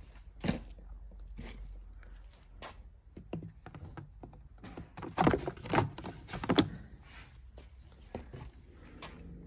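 Hard plastic trim parts of a Renault Master 3 centre console being handled and clipped into the new console panel. Scattered clicks and knocks, with a quick cluster of louder clicks about five to seven seconds in.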